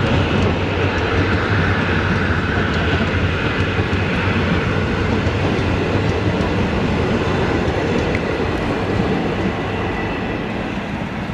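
Train running on the line: a steady, dense rumble of wheels on rail that eases off slightly near the end.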